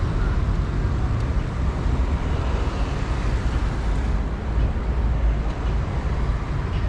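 Steady city traffic noise, cars and buses passing as a continuous low rumble.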